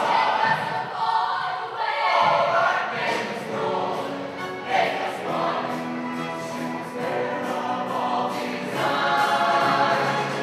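Mixed-voice show choir singing in harmony over a live band, holding long sustained chords from about the middle of the stretch.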